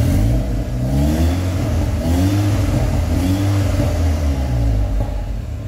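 Seat Leon Cupra R Mk2's turbocharged 2.0-litre four-cylinder engine revved several times at standstill through a custom valved cat-back exhaust with the valves closed. Each rev rises and then falls back toward idle.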